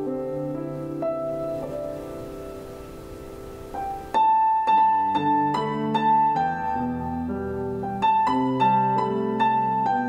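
Instrumental interlude of a recorded ballad played through a Polk Signature S20 bookshelf speaker and picked up in the room: soft held chords, then about four seconds in a louder passage of struck piano notes.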